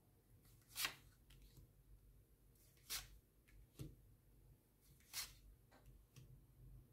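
Near silence broken by about four faint, short rustles from tarot cards being handled on a table.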